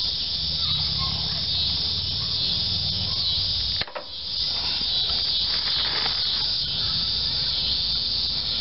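Cicadas singing: a steady high-pitched buzz. Faint handling clicks come from a rubber fuel hose being worked onto the engine. The whole sound cuts out briefly about four seconds in.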